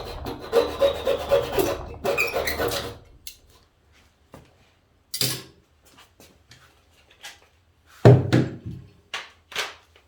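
A hand tool worked back and forth on the wooden dowel plugs glued into the old hinge screw holes, in quick rasping strokes, trimming them down. The strokes stop about three seconds in, followed by scattered knocks and taps on the wood, the loudest about eight seconds in.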